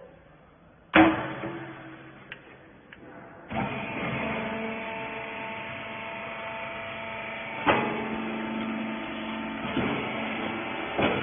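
A loud metallic bang about a second in. A couple of seconds later the rag baler's hydraulic power unit starts up and runs steadily with a humming motor and pump, with a few clanks from the machine along the way.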